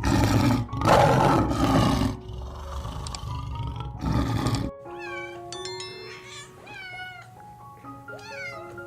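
An animal roaring in loud, rough bursts for the first few seconds, then a cat meowing several times, over steady background music.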